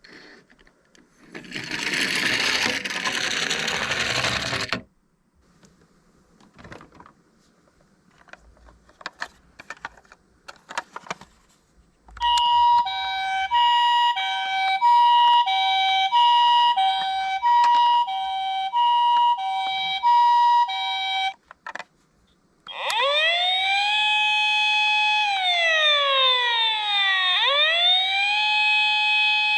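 Toy minicar sirens from tiny built-in speakers. First an ambulance's electronic two-tone siren alternates steadily between a high and a low note for about nine seconds. After a short break a police car's electronic wailing siren starts, rising, holding and falling in long cycles. Earlier, a loud rushing noise lasts about three seconds, followed by light plastic clicks.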